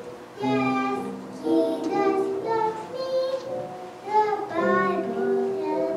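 A young girl singing a song into a microphone, a string of held sung notes.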